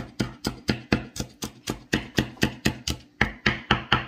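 A cleaver chopping garlic cloves on a wooden cutting board: a quick, even run of knocks, about four a second, with a brief break about three seconds in.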